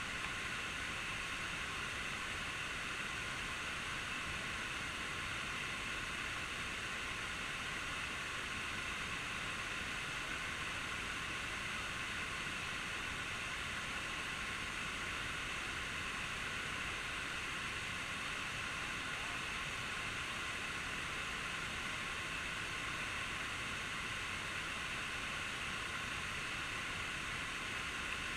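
Falling water of a waterfall making a steady, unbroken rushing hiss.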